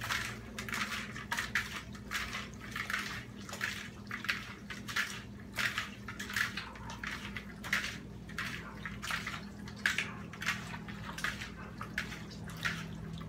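Wet squelching of hands kneading raw chicken livers in their marinade in a glass bowl, coming in uneven squishes a few times a second.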